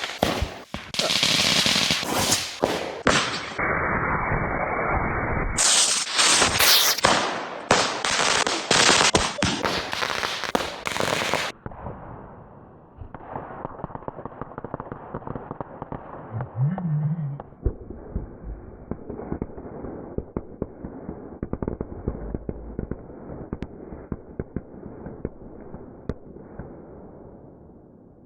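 Fireworks and firecrackers going off in rapid strings of sharp bangs and pops, loud for the first ten seconds or so, then a fainter, continuous crackling of small quick pops for the rest.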